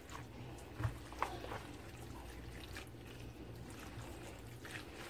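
Spatula stirring a creamy tuna, corn and mayonnaise mixture in a plastic bowl: faint wet squelching with a few light knocks, the first a little under a second in.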